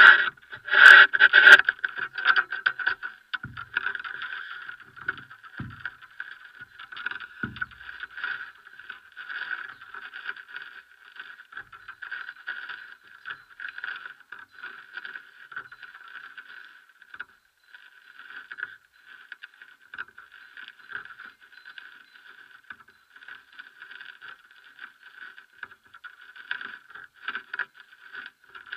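Crackling rubbing and handling noise picked up by the microphone of a Drift HD170 action camera mounted on top of a tall pole as the pole is turned. There are sharp knocks in the first second or so and a few dull bumps a few seconds in.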